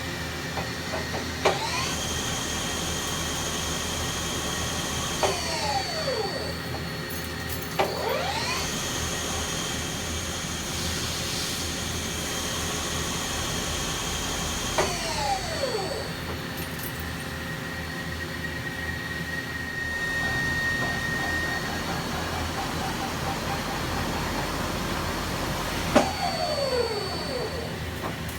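1997 Mazak SL40 CNC lathe running. Its spindle repeatedly spins up with a rising whine after a click, runs steadily for several seconds and winds down with a falling whine, over the machine's steady hum.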